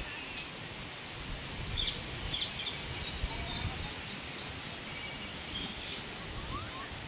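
Outdoor ambience: a steady low rumble and hiss with scattered short, high bird chirps, bunched around the middle.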